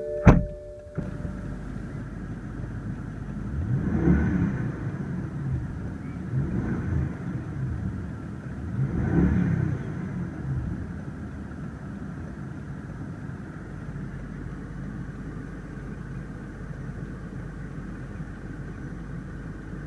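2014 BMW 650i Gran Coupe's 4.4-litre twin-turbo V8 idling just after start-up. It is revved three times, at about 4, 7 and 9 seconds, then settles back to a steady idle. A sharp click comes just before the engine sound sets in.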